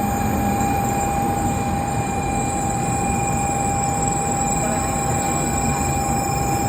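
N700-series Shinkansen train giving a steady rumble and noise with a constant high-pitched whine.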